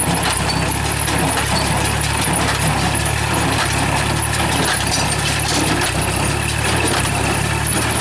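A tractor engine runs steadily under load, pulling a straw baler that is working as it picks up and presses rice straw.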